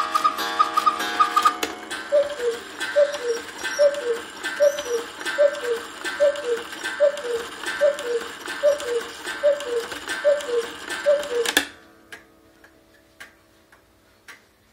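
Antique cuckoo quail clock striking twelve. The quail bellows finish their quick high double notes, then the cuckoo calls its falling two-note 'cuck-oo' twelve times, about one a second. The calls stop suddenly near the end, leaving the movement ticking.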